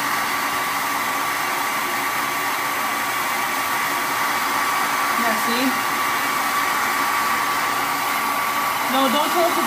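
Handheld hair dryer running steadily on a blow setting, a rushing of air with a steady whine.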